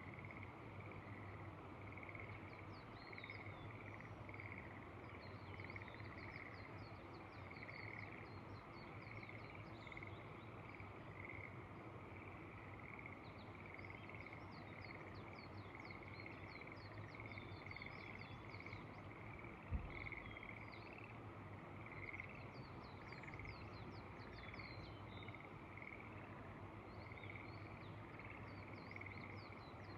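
A chorus of frogs calling steadily, a continuous pulsing trill, with high quick chirping above it. A single low thump about two-thirds of the way through.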